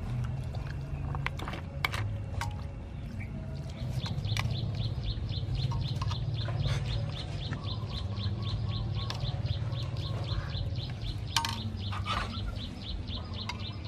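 Metal ladle scooping and clinking in an aluminium bowl of iced dessert, with scattered sharp clicks of metal and ice. From about four seconds in, a bird chirps over and over, about three or four chirps a second, over a steady low hum.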